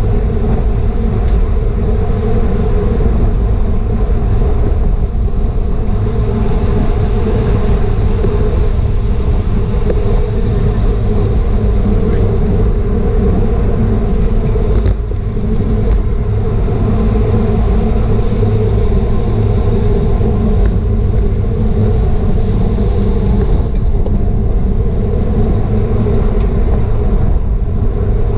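Steady rush of wind over a bike-mounted action camera's microphone at racing speed, with road and tyre noise from the bicycle underneath. A few sharp clicks come past the middle.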